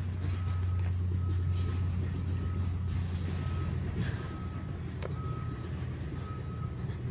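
Can-Am Maverick X rc Turbo RR's turbocharged three-cylinder engine idling steadily, a little louder in the first few seconds. Over it a short high beep repeats about once a second, and there is one sharp click about five seconds in.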